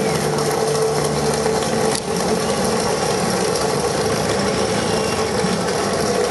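Running noise of the vehicle carrying the camera as it drives slowly along a road: a steady, dense rattle with engine and road noise.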